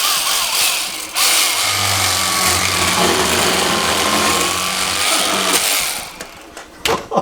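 Cordless electric fillet knife running as it cuts through a walleye, its motor whine wavering as the blades meet the fish. The whine dips briefly about a second in, then stops near the end, followed by a couple of sharp knocks.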